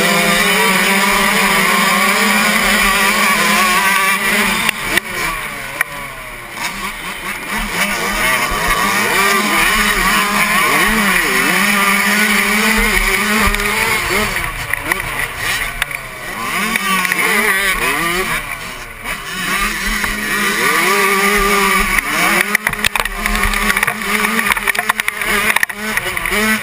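Suzuki 85cc two-stroke motocross bike's engine at race pace, revving up and down as it works through the gears. It drops off the throttle briefly several times, then winds back up.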